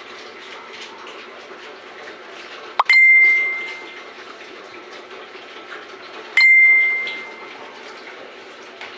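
A high metallic ding, struck twice about three and a half seconds apart, each ringing out and fading over about a second, over a steady background hiss.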